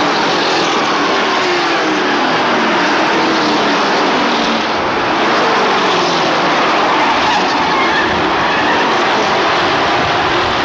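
Race trucks running at full speed around a short oval track, their engines loud and steady, with the engine pitch sliding down several times as trucks pass by.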